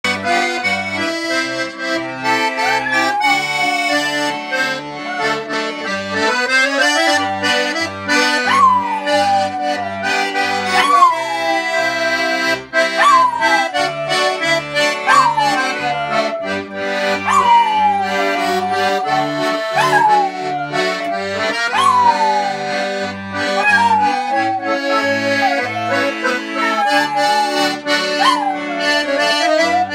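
Accordion music with a rhythmic oom-pah bass, and a dog howling along to it: a long rising howl about six seconds in, then falling howls roughly every two seconds.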